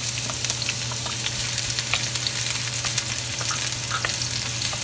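Diced white onion sizzling in hot cooking oil in a stainless steel wok while being stirred with a wooden spatula: a steady frying hiss with many small pops and crackles.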